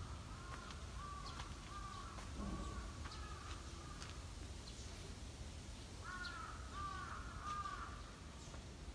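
A crow cawing faintly in two runs of quick, repeated caws: one at the start and another about six seconds in.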